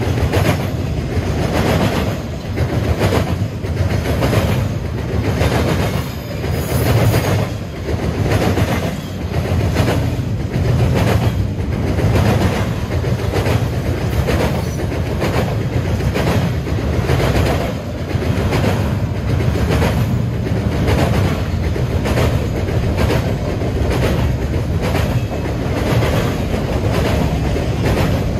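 Double-stack intermodal train's container well cars rolling past close by: a steady low rumble with the wheels clicking over the rail joints in an even, repeating rhythm.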